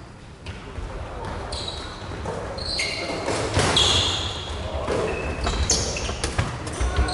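Dodgeball game in a large hall: players shouting, rubber balls bouncing and striking, with short high squeaks and knocks that get busier from about halfway through.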